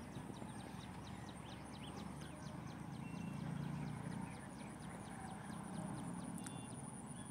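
Faint pond-side outdoor ambience: a rapid run of high clicks, about four or five a second, with a steady high whine coming in about four seconds in, over a low rumble.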